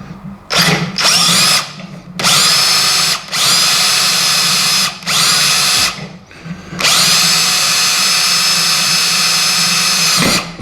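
Power drill boring through steel in several bursts, each starting with a rising whine as the motor spins up. The longest burst comes near the end and lasts about three and a half seconds. The hole goes right through the vise's tailpiece and nut, clear of the lead screw.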